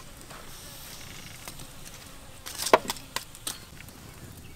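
Wood cooking fire burning under a grill rack, a low steady hiss with a few sharp cracks and clicks coming close together about two and a half to three and a half seconds in.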